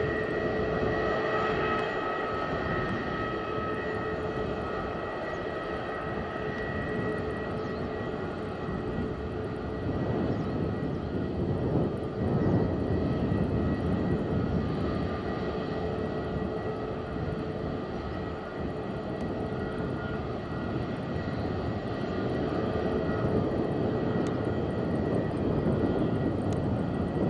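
Jet engines of Airbus A320neo-family airliners running at taxi power: a steady whine of several held tones over a rushing noise, swelling a little about ten seconds in.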